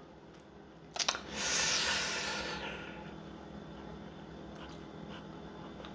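A man's breath: a short click about a second in, then one long exhale that fades out.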